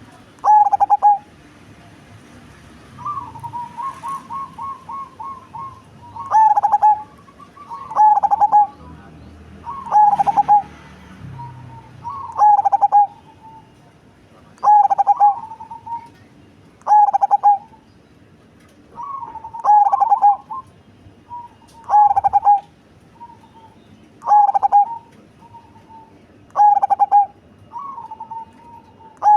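A cemani zebra dove (perkutut) cooing. A quick run of short stuttering notes comes first, then a loud repeated coo phrase about every two seconds, big-voiced and deep.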